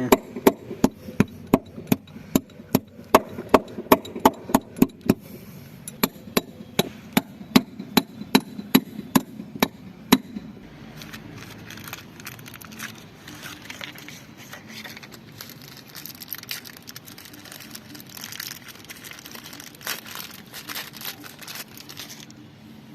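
Hammer tapping a new seal into a washing machine drum's bearing housing: sharp metal blows, about two to three a second, for roughly ten seconds. After that, lighter irregular clattering and scraping of tools and metal parts.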